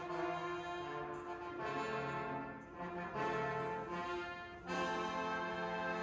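Military band brass playing slow, held chords in phrases, with short breaks between them and a loud new chord about four and a half seconds in.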